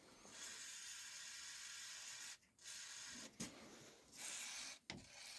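WD-40 aerosol being sprayed onto the stabilizer-link bolts as penetrating lubricant before they are unscrewed: a steady hiss lasting about two seconds, then a shorter burst about four seconds in, with a couple of light knocks between.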